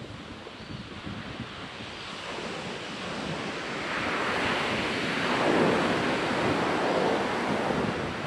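Ocean surf on a beach, with a wave swelling about halfway through, washing in loudest and then easing off. Wind buffets the microphone throughout.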